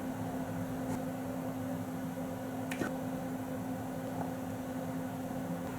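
Steady low electrical hum with a faint even hiss, and one small click about halfway through. No thunder is heard.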